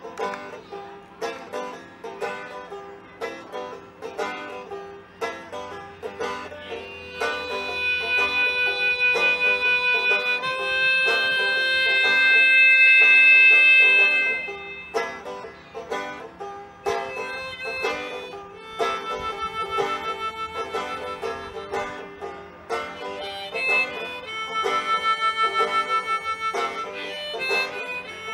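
Banjo picked with a harmonica playing along. The harmonica comes in about seven seconds in with long held chords, loudest around twelve to fourteen seconds, then plays a quickly pulsing held note over the picking for the last ten seconds.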